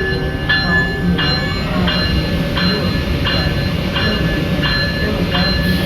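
Locomotive bell ringing steadily, about eight even strokes at roughly one and a half a second, over the low rumble of the locomotive.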